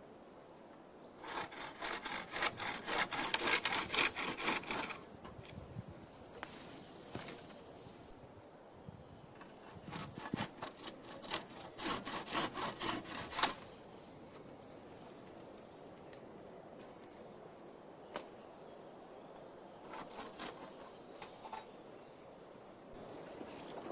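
Hand saw cutting through wood in two long bouts of quick, even strokes, with a short third bout near the end.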